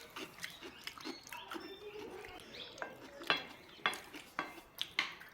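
Plates and cutlery clinking lightly during a meal, a few scattered clicks, with faint children's voices calling in the background.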